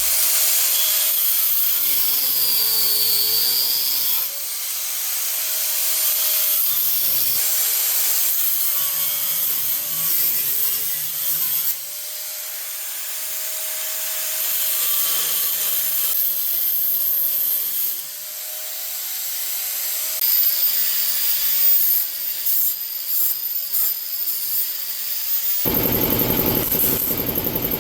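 A handheld power tool abrading metal, its motor tone dipping in pitch as it is pressed into the work and recovering as it eases off. Near the end the sound turns harsher and fuller.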